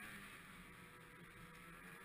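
A two-stroke snowmobile engine running, faint and muffled, its pitch wavering slightly.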